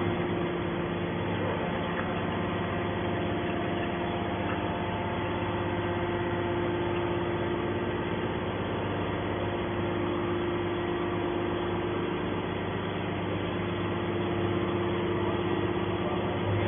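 Motor of a homemade steel can baler running with a steady, unchanging hum.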